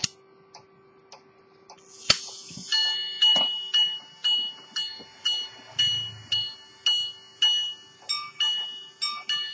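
Minute-repeater pocket watch movement (Edmond Mathey-Tissot, c. 1900–1910): faint ticking, then a sharp click about two seconds in as the repeater is set off. Its hammers then strike the gongs in a steady run of single ringing hour strikes about two a second. Near the end these change to paired two-tone strikes for the quarters.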